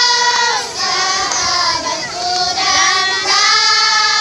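A group of children singing together, holding notes about a second long in short phrases with brief breaks between them.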